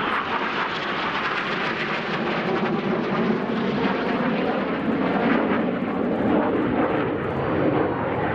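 Several BAE Hawk T1 jets flying past, their Adour turbofans giving a steady, broad jet noise with a low tone underneath that slowly shifts in pitch.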